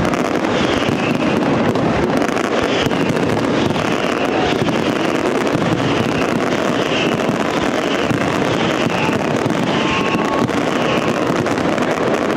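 Valencian castillo fireworks display: a dense, unbroken barrage of aerial shells bursting and crackling, with no gaps between the reports.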